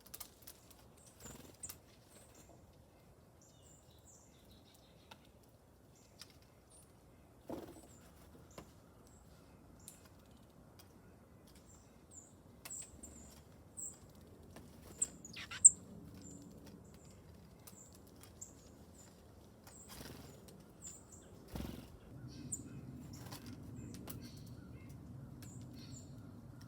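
Small songbirds giving many short, high chirps scattered throughout, with occasional sharp clicks and knocks. A low steady rumble comes in near the end.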